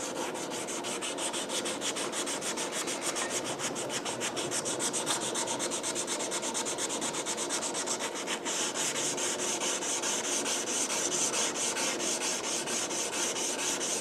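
Sandpaper wrapped on a wooden paint stir stick being rubbed back and forth along a steel leaf spring knife blade, quick even strokes of hand sanding.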